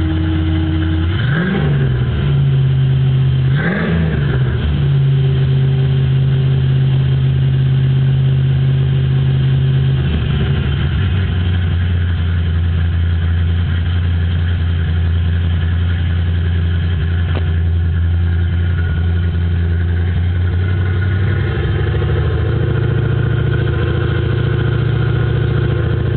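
1995 Ford Mustang GT's 5.0 V8 with an aftermarket cam, idling and revved briefly twice. After the revs the idle hangs high for several seconds, then drops about ten seconds in. This high, hanging idle and hum come from a faulty idle air control valve.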